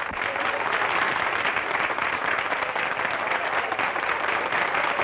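A theatre audience applauding, dense and steady.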